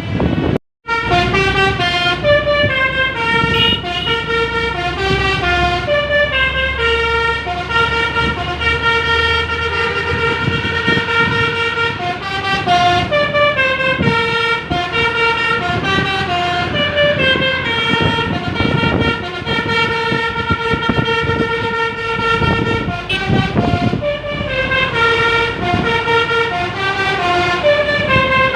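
Bus telolet horns, electric-valved multi-trumpet air horns, playing stepped multi-note tunes one after another, with engine rumble underneath. The sound cuts out for a moment under a second in.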